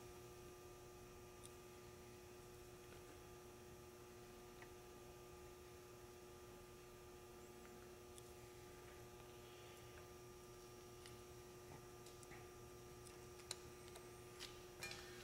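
Near silence: a faint, steady electrical hum, with a couple of faint ticks near the end.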